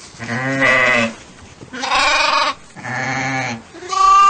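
Sheep bleating: three wavering calls of under a second each, with a fourth beginning near the end.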